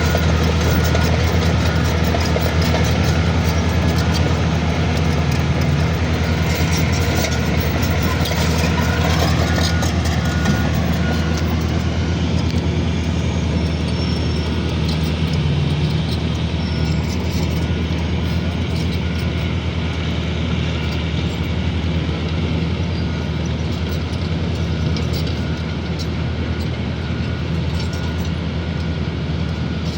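Heavy diesel earthmoving machine engine running steadily with a deep hum, and a higher whine above it that bends in pitch about nine seconds in.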